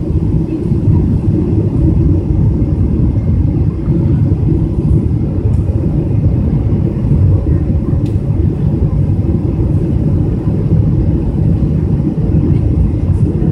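Steady low rumble of engines and rushing air heard inside the cabin of a Boeing 777-200 airliner on its landing approach.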